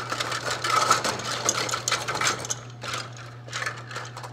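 Dense, irregular clicking and rattling of a Dutchess dough divider head's plungers knocking against the skeleton plate and one another as the plate is fitted down over them, over a steady low hum.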